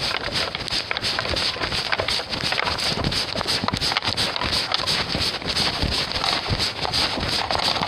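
Quick footsteps through snow, a dense run of short uneven crunches, with clothing and gear rustling close by.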